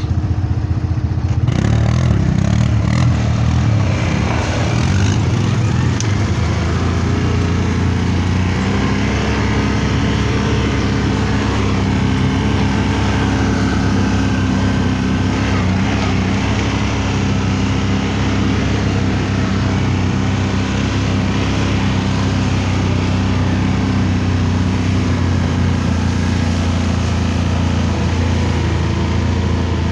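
ATV (quad bike) engine running steadily at low, fairly even revs, as in slow off-road crawling.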